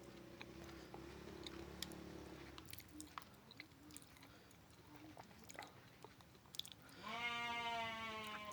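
Close-up eating sounds: chewing with scattered small mouth clicks. About seven seconds in, a single long animal call lasts about a second and a half, its pitch dropping slightly.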